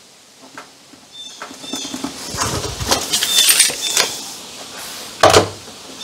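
Scratching and rustling of a board being measured and pencil-marked, with small clicks, then a single sharp knock about five seconds in.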